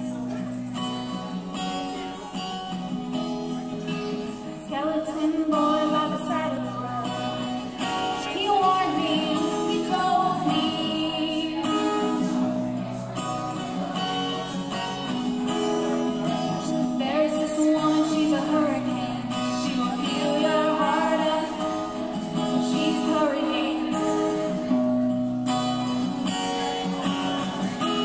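Acoustic guitar strummed in steady chords, with a woman's singing voice joining about five seconds in.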